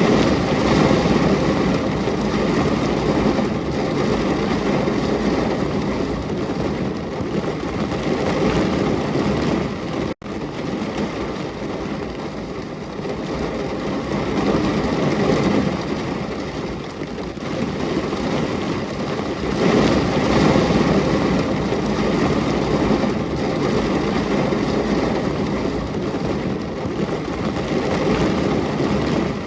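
Steady, heavy rain falling as a continuous rushing noise. It cuts out for an instant about ten seconds in.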